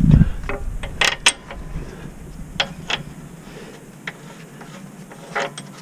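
A dull thump, then irregular sharp metal clicks and clinks from the lower mounting hardware of a rear shock absorber (bolt, washer and nut) being handled and fitted by a gloved hand.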